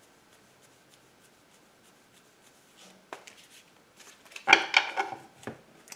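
Tarot cards being handled on a wooden table: soft rubbing and sliding of cards with a few small clicks, picking up about three seconds in and loudest a little later.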